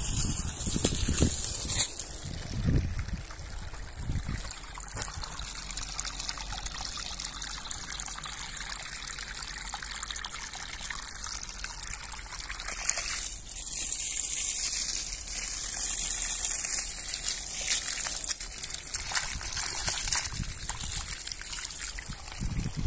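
Water gushing steadily from the end of a hose and splashing onto muddy soil and into a spreading puddle. The flow is driven by a solar-powered pump made from a dishwasher motor.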